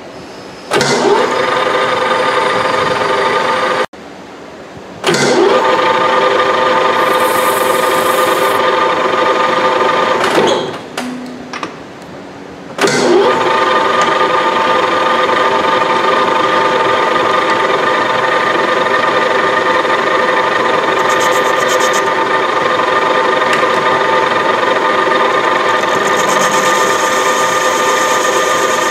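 Metal lathe facing a cast aluminium blank: a loud, steady, high-pitched ringing whine from the cut, with several steady tones. It breaks off abruptly twice and then resumes and holds steady.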